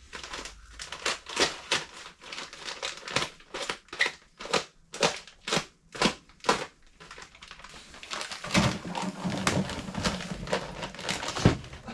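Plastic bag of thin-set mortar being opened and handled, crinkling sharply about twice a second. In the last few seconds it turns to a denser, steadier rustle as the bag is tipped toward a bucket.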